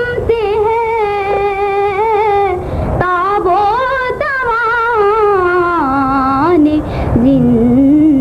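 A young girl's solo singing voice reciting a naat, holding long, ornamented notes that waver in pitch, with short breaths about three and seven seconds in; around six seconds in the melody drops to a lower pitch.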